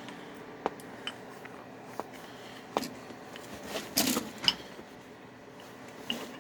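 Tiny screwdriver clicking and scraping against the plastic power-switch housing in a Dell OptiPlex 790 tower's front panel while prying the switch loose. Scattered sharp clicks, with the busiest burst of clicks and scraping about four seconds in, over a faint steady hum.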